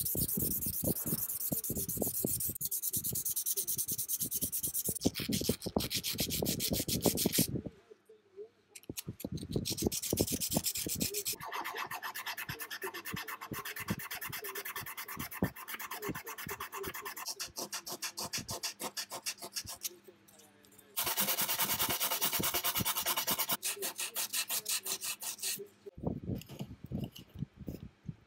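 Rapid back-and-forth rubbing strokes, hand abrading the steel parts of vintage vernier calipers to clean off rust and gunk. The strokes come in long spells with brief pauses about eight seconds in and again about twenty seconds in.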